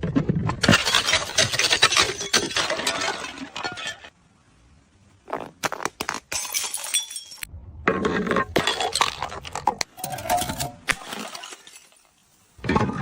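Glass bottles smashing in several bouts of crashing, with shards scattering and clinking and a few ringing glass tones between the crashes.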